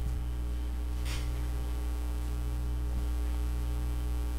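Steady electrical mains hum picked up by the recording microphone: a low, unchanging hum with several evenly spaced overtones.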